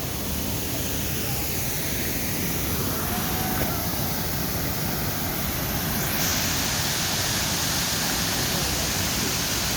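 Abrams Falls waterfall pouring, a steady rush of water. The hiss grows brighter about six seconds in.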